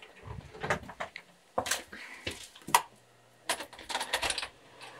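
An interior door being opened: a series of clicks and knocks from the handle, latch and door, with one sharp click about halfway through. After it a low, steady hum sets in.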